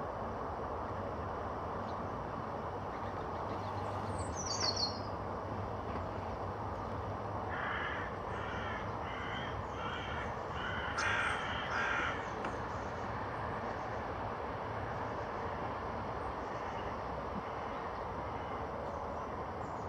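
A bird gives a run of harsh, repeated calls, about two a second for some five seconds, after one brief high, falling call a few seconds earlier, over a steady low background rumble.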